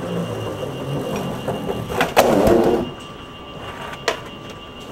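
Skateboard wheels rolling on an airport moving walkway, a rumbling that swells loudest a little past the middle. Sharp clacks of the board come about two seconds in and again near the end.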